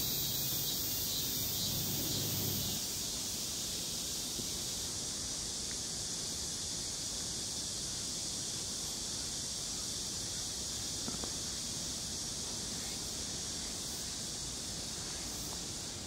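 Steady outdoor ambience: an even, high-pitched hiss, with a low hum underneath that stops about three seconds in.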